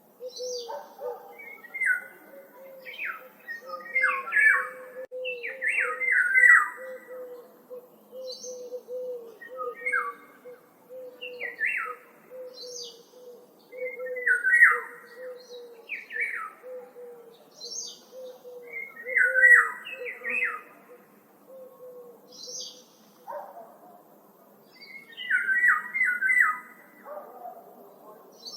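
Woodland birds singing: short phrases of quick, falling chirps repeated every couple of seconds, with a low call repeated steadily and quickly beneath them.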